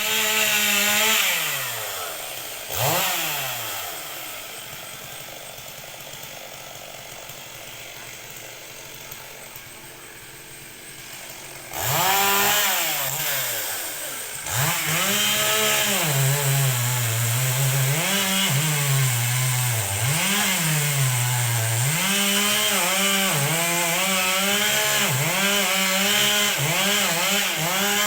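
Two-stroke chainsaw revving, dropping back to a quieter idle for several seconds, then revving up again about halfway through and running at full throttle. Its pitch repeatedly sags and recovers as the chain bogs down under load cutting into the tree.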